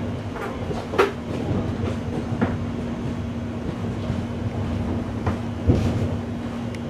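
Suburban train running, heard from inside the passenger car: a steady low rumble with a constant hum. Several sharp knocks come from the wheels, the loudest about a second in and near six seconds.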